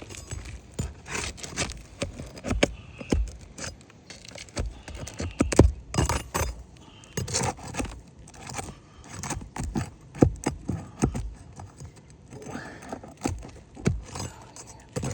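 A metal roof snake worked under asphalt shingles, with irregular metallic clicks, knocks and scrapes as it is pushed and pried between the shingle courses.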